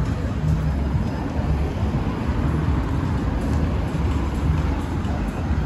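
Outdoor city street ambience dominated by a steady low rumble of road traffic.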